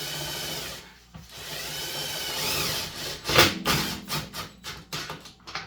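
Power drill driving self-tapping screws into a plastic ice-cream tub: the motor runs briefly, stops, then runs again for about two seconds with its pitch rising and then falling. A string of sharp clicks and knocks follows in the last couple of seconds.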